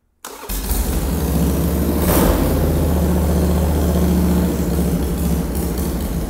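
A 2001 Harley-Davidson Sportster's air-cooled Evolution V-twin fires up and runs loudly through straight-end upswept open exhaust pipes. There is a brief surge in loudness about two seconds in.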